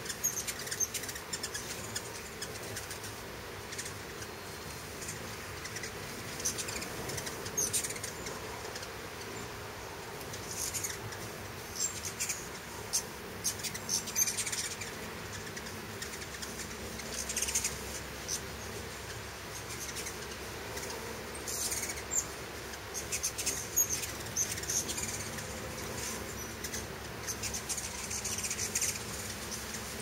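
Hummingbirds at feeders: the buzzing hum of their wings, with many short, high chips and squeaks scattered throughout.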